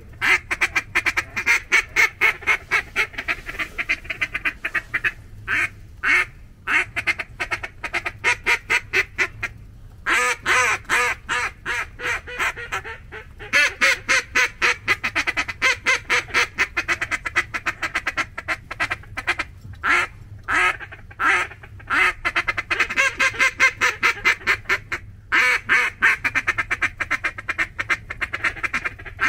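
A hand-held duck call blown in long, rapid runs of short quacking notes, several a second, with a few brief pauses between runs, calling to mallards over a decoy spread.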